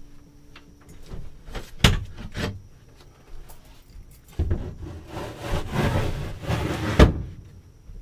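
Wooden bed-filler board and sofa pieces being handled: two sharp knocks about two seconds in, then a stretch of rubbing and sliding that ends in a loud knock about seven seconds in.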